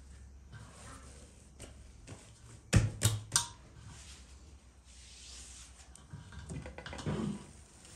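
Hands working bread dough: soft handling noises, three sharp knocks close together about three seconds in, then a hand rubbing across a wooden board and a soft thud near the end.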